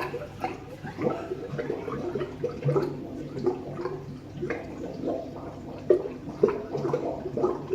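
Water gurgling in the plumbing: a run of irregular glugs and pops with short pitched bubbling tones.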